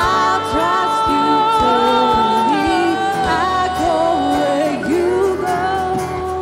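A woman singing a slow worship song into a microphone, with a live band accompanying her.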